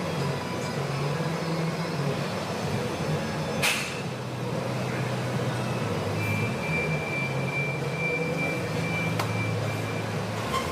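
Steady low machine hum with a single sharp click a little after three and a half seconds in, and a thin high whine from about six to ten seconds in.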